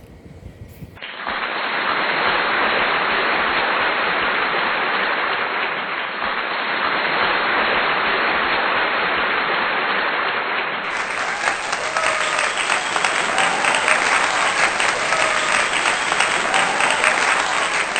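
Crowd applause, a dense even patter of many hands that starts abruptly about a second in, with a few faint voices in it.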